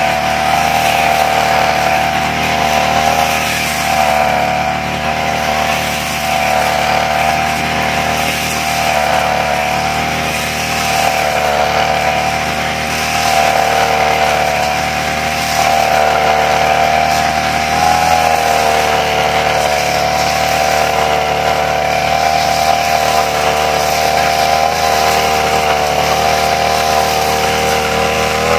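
Brush cutter engine running steadily at high revs while cutting grass, its pitch wavering slightly under load.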